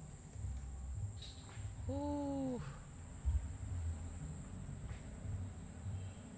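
Crickets trilling in one continuous high-pitched drone over a low, uneven rumble. About two seconds in comes a single short, pitched hum lasting under a second.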